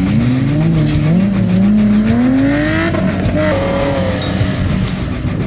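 Off-road 4x4 buggy engines revving under load, the pitch dipping and rising, climbing steadily for about two seconds, then holding higher near the middle.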